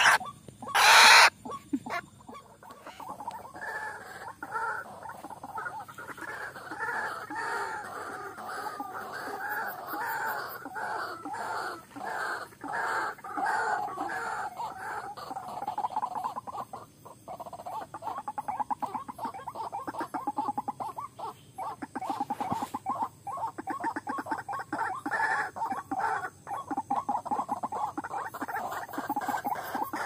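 A few loud wing flaps from a white-breasted waterhen held in the hand in the first second or so. Then a continuous lure recording of white-breasted waterhen calls: a fast, unbroken run of 'ruak-ruak' calls.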